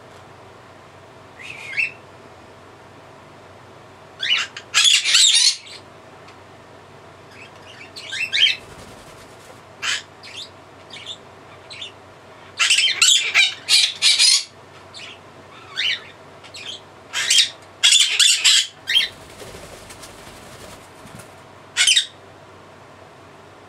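Blue-crowned conure shrieking: loud, harsh, high calls, some single and some in quick runs of several, with pauses of a few seconds between.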